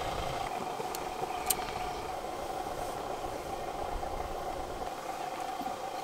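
An engine running steadily at an even pitch, with a couple of faint light clicks about a second and a second and a half in.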